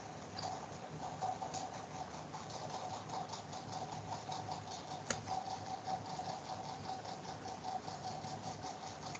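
Background room noise through the microphone: a steady hum with a faint regular ticking, about four ticks a second, and one sharp click about five seconds in.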